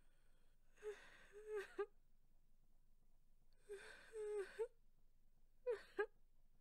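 A person crying quietly: three short bouts of sobbing whimpers, their pitch wavering up and down, separated by pauses.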